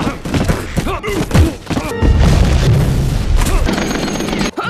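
Animated-film action sound effects under a music score: heavy impacts and thuds of a body slammed into rock, then a long, loud roaring blast of flame-thrower fire and gunfire hitting a suit in a test chamber.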